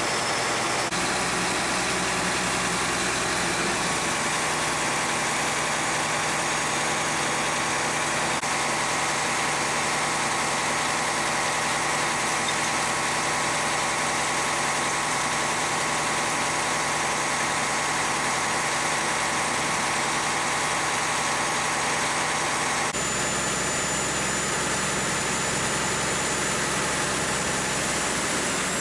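Manure water rushing steadily out of a large pump-truck discharge pipe, mixed with the steady running of the truck's engine-driven pump, with a faint whine through it. The sound changes abruptly a few seconds before the end, as the jet from the pipe gets much stronger.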